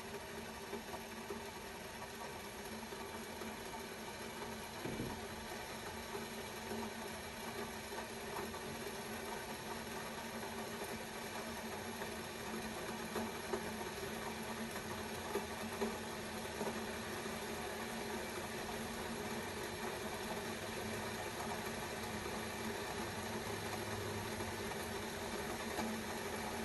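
Kettle heating water toward the boil: a steady rumbling hiss that slowly grows louder, with a few small pops about halfway through.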